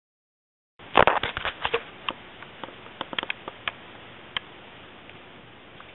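Scissors snipping hair at a fringe: after a moment of silence, a quick run of sharp snips, then a few scattered ones, over a faint steady hiss.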